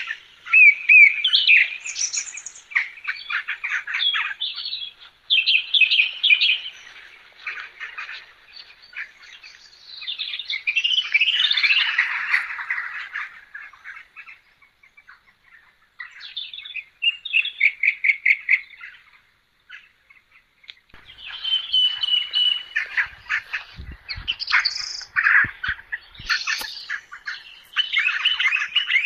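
Birds chirping and singing in quick trills and runs of notes, with short pauses between phrases.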